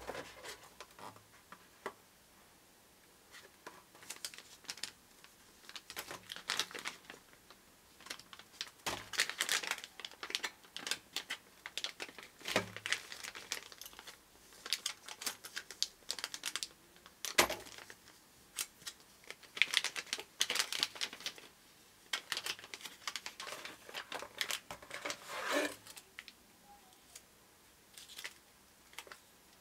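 Packaging being opened and handled: irregular crinkling and rustling of plastic wrap, with scattered clicks and taps of box parts and contents.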